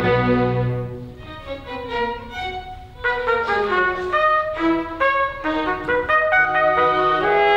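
Symphony orchestra playing, with brass to the fore. A full held chord dies away in the first second or so, and after a quieter stretch a melody of short, distinct notes enters about three seconds in.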